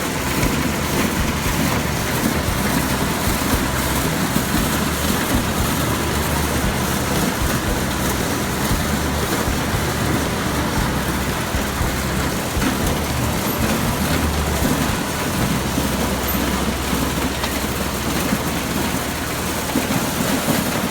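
Farm machinery running steadily during corn picking: a tractor engine's low rumble under a dense, even rushing noise.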